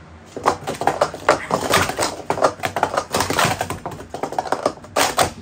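Wooden sport-stacking cups clattering in rapid succession as they are stacked up and down on a mat at speed, a quick run of light knocks. Two louder, sharper knocks come near the end.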